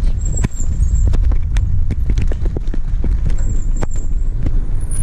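Low, steady wind rumble on the microphone of a camera riding on a moving bicycle, with many irregular clicks and knocks from the bike rolling over a rough concrete street.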